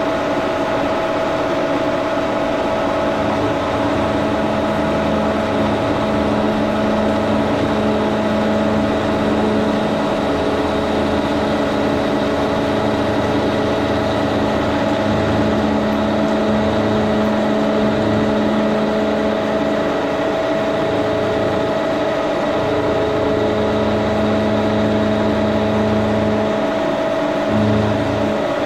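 1942 Brown & Sharpe No. 2 Plain milling machine running while its cutter roughs down a piece of salvaged aluminum: a steady whine over a low hum that swells and fades.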